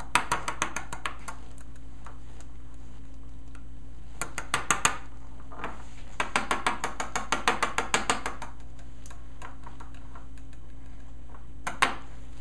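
Knife tip pricking holes in a crescent-dough pastry shell: quick runs of light clicks, several a second, in three spells, the longest about two seconds.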